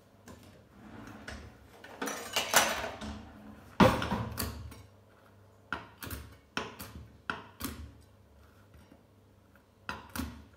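Kitchen knife chopping almonds on a wooden cutting board: a scraping rustle of the nuts on the board, a heavy knock about four seconds in, then a string of short sharp chops spaced about half a second to a second apart.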